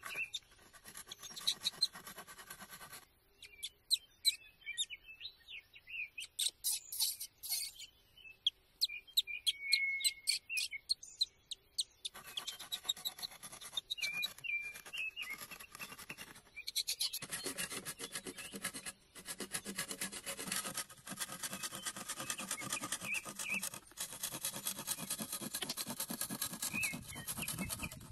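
Hand saw cutting through a green bamboo pole in repeated back-and-forth strokes. The strokes are sparse at first, then come closer together and louder from a little before halfway on.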